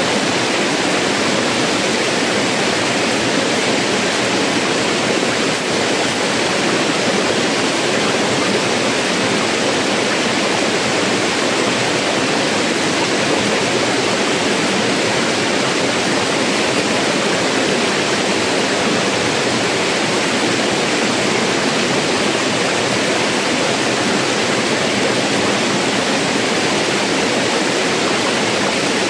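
Rushing river water pouring over rocks in a small cascade, a loud, steady, unbroken hiss.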